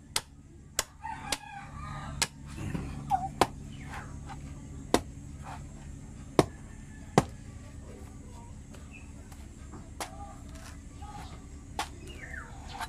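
Bolo knife chopping into the husk of a young green coconut: about a dozen sharp chops at uneven intervals, loudest a little past the middle. A rooster crows about two seconds in and calls again near the end, over a steady low hum.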